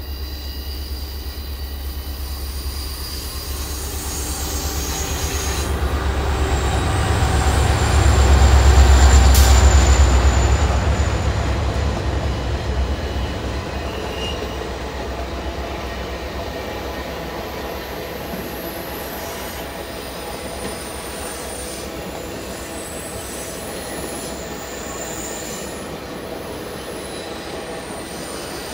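Union Pacific SD70AH-T4 diesel-electric locomotive passing close by with a deep engine rumble that swells to its loudest about nine seconds in. The heritage passenger cars then roll past steadily, their wheels squealing on the curve.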